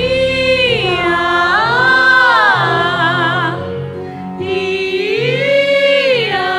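Background music: a voice singing long notes that rise and fall smoothly, over held low accompanying notes.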